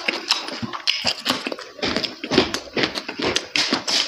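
Close-up chewing of a mouthful of food, with wet lip-smacking and a quick, irregular run of crunchy clicks.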